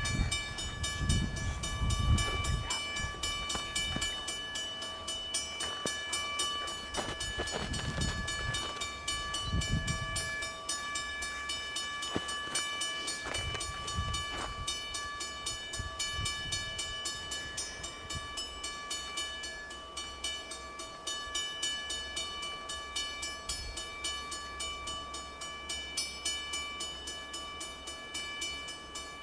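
Norfolk Southern coal train's diesel locomotives approaching, a low engine rumble that becomes steady about two-thirds of the way through. A steady high whine runs under it, and heavy low thumps come in the first ten seconds.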